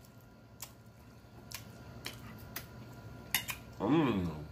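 A person chewing food with scattered wet mouth clicks and smacks, then a short hummed 'mmm' of enjoyment near the end that rises and falls in pitch.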